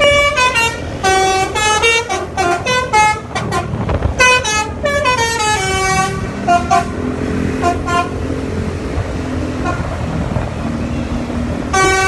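Basuri 'telolet' multi-tone bus air horn playing a quick melody of short notes that jump in pitch for about six seconds. A few separate toots follow, and one more note sounds near the end, with a low engine rumble underneath.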